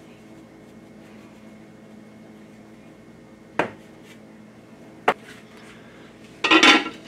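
Two single sharp knocks, then, near the end, a glass slow-cooker lid clattering as it is set down on the rim of the ceramic crock, the loudest sound.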